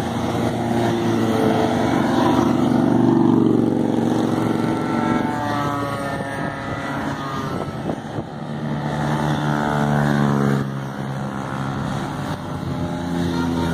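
Motorcycles and a scooter riding past one after another. Each engine note swells and fades as it goes by, its pitch bending as it passes.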